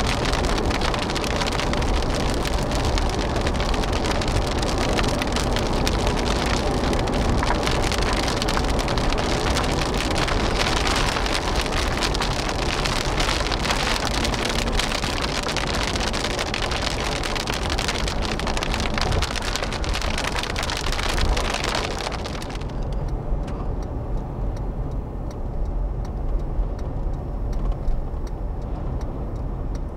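Rain hitting the roof and windshield of a car driving on a highway, over steady engine and tyre noise. About 22 seconds in, the rain noise cuts off abruptly, leaving the lower rumble of the car on the road.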